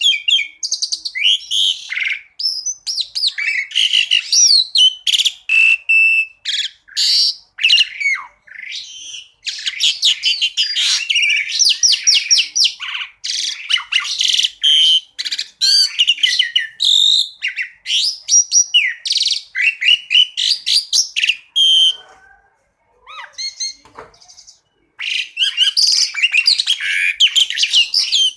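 Asian pied starling (jalak suren) singing a long, varied song of rapid high chirps, trills and whistled glides, with a short pause about three-quarters of the way through before it starts again.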